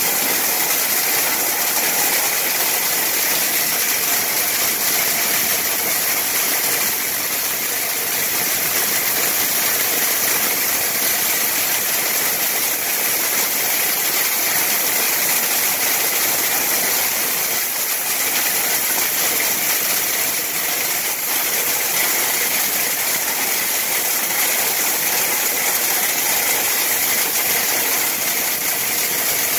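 Steady loud rush of air through sheet-metal ductwork under a duct-cleaning vacuum, an even hiss that carries on without a break.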